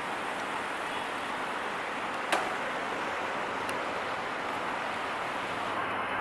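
Steady rumbling wash of an approaching diesel-hauled passenger train, the EMD GT18LA-2 locomotive and its coaches on the rails, blended with background noise. One sharp click comes about two seconds in.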